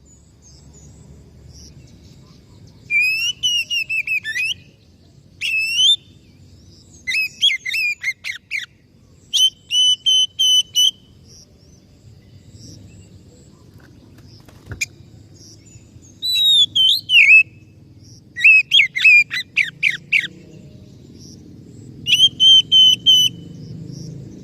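Oriental magpie-robin (kacer) singing in loud, clear whistled phrases a second or two long, separated by pauses. Some phrases slide up and down, some are rapid trills, and some are held steady whistles.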